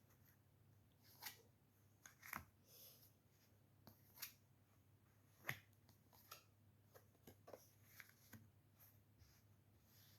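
Faint, scattered clicks and taps of oracle cards being handled and laid down, about one every second, in an otherwise near-silent room.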